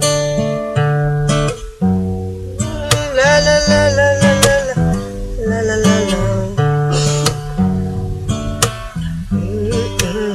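Guitar playing an instrumental passage of a slow R&B ballad, with sliding, bent notes over sustained chords and bass.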